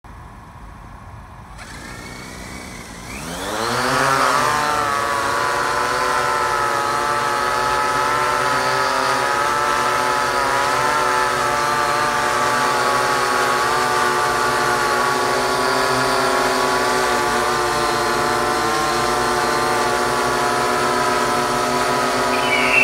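Goldtel bird-scaring quadcopter drone's electric motors and propellers spinning up, the pitch rising over a second or so about three seconds in. Then they hold a steady whirring hum while the drone stays on the ground.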